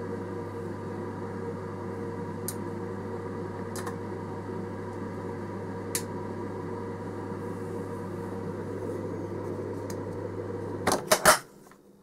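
DIY solder fume extractor's 150 mm inline tube fan running, a steady hum with a rush of air, drawing in solder smoke. Near the end there are a few clicks and the fan sound stops.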